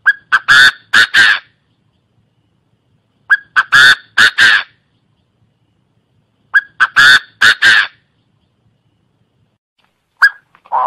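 Chinese francolin calling: three loud phrases about three seconds apart, each a short lead-in note followed by three or four loud notes, then a single short note near the end.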